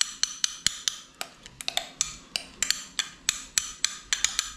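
Metal spoon clicking and tapping against a dish, about four quick clicks a second, while glaze is spooned and spread over a loaf.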